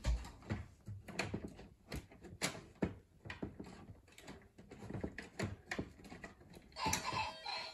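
Plush stuffed toys being handled and pushed against each other close to the microphone: irregular soft rustles, brushes and light knocks, several in a second.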